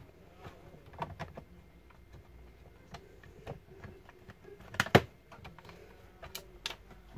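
Light clicks and taps of a laptop hard drive being handled and pressed into its bay and onto its connector in the plastic laptop base, with a louder pair of knocks about five seconds in.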